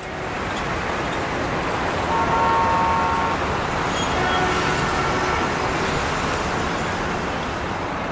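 Steady rush of motorway traffic, with a vehicle horn sounding for about a second, about two seconds in.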